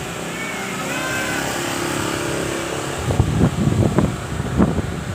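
Strong storm wind: a steady rushing noise, then from about three seconds in, irregular gusts buffeting the microphone.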